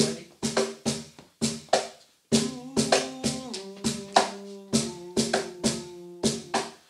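Acoustic group music: a steady hand-played percussion beat of sharp strikes, joined about two seconds in by held, changing chords.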